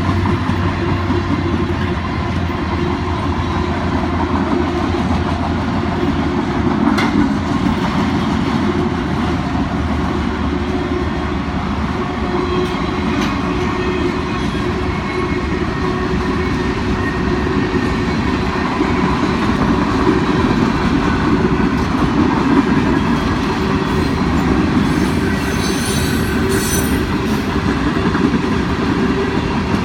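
CSX freight train rolling past steadily, the sound of its wheels on the rails, with a brief high-pitched wheel squeal about 26 seconds in.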